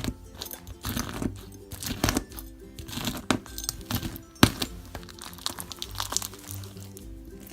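Slime being squeezed and poked by hand, giving crinkly, crunchy crackles every second or so, over background music.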